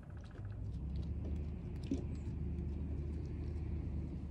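Low, steady engine hum of a motor vehicle, coming in about half a second in and holding at an even pitch.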